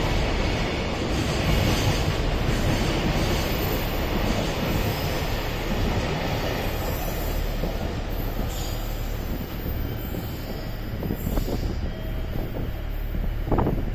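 Container wagons of a freight train running past at speed: steady noise of steel wheels on rail. It eases somewhat about two thirds in as the last wagons go by, with a few sharp clacks near the end.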